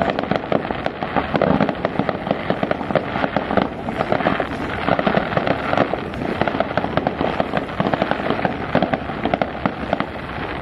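Fireworks display crackling in a dense, rapid, continuous barrage of small pops and bangs, easing slightly near the end.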